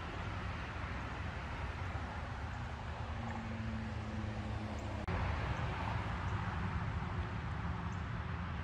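Steady rush of distant road traffic with a low rumble. The background changes abruptly about five seconds in.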